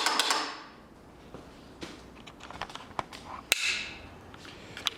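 A run of sharp metallic clicks and rattling that fades in the first half second, then a few scattered sharp clicks and taps, the loudest about three and a half seconds in.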